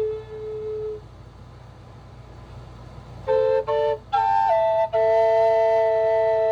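Solo flute music. A low held note ends about a second in; after a pause of about two seconds, a short run of quick notes starts, then settles into long held notes with a small step down in pitch.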